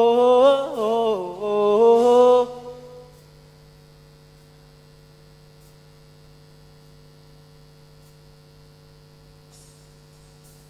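Unaccompanied voices holding the final sung note of a worship song with vibrato, dying away about two and a half seconds in. After that only a steady electrical mains hum remains.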